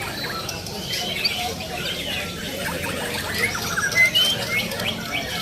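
Many songbirds chirping and singing over one another in short rising and falling calls, over a low background din.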